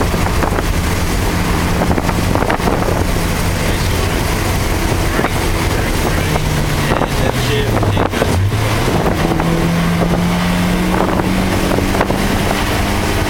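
Car engine heard from inside the cabin during a lap of a wet race track. It holds a steady pitch, drops off for a corner about six to eight seconds in, then picks up again and pulls higher, over a constant rush of wet-road and wind noise.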